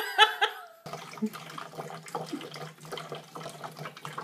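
Water running from a water cooler's spout while a cat drinks from it, with many small clicks and a steady low hum underneath. A brief burst of a person's voice is heard in the first second.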